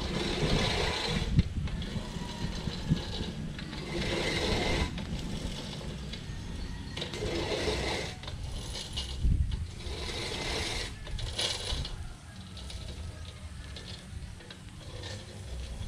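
Manual reel push mower cutting grass in repeated forward pushes, each about a second of spinning blades and clipping, a few seconds apart with quieter stretches between.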